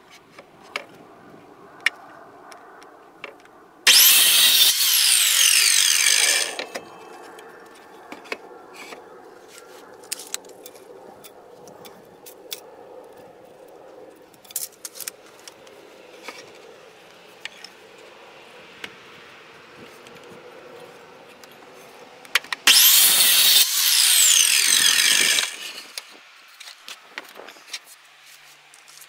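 Electric miter saw cutting through a 2x4, twice: about four seconds in and again about 23 seconds in, each time a loud burst of about two and a half seconds, with the motor whining down in pitch as it stops. Between the cuts, quieter clicks and knocks of the board being handled.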